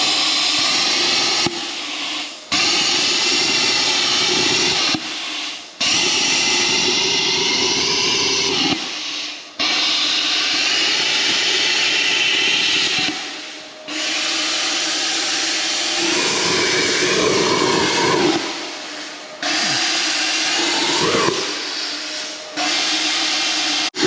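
Plasma cutter arc hissing loudly in runs of a few seconds, stopping and restarting abruptly about six times, as it cuts slots into worn excavator bushings to free them.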